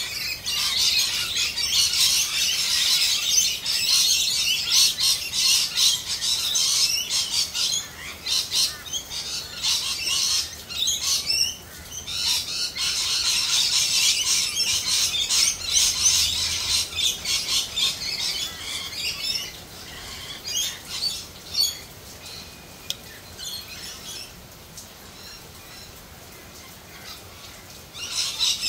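Birds squawking and chattering loudly in a busy, continuous jumble of shrill calls. The calling dies down about two-thirds of the way through and picks up again at the very end.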